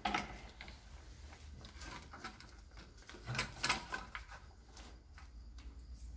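A few faint knocks and scuffs in a quiet, small room over a low steady rumble, the loudest pair about three and a half seconds in.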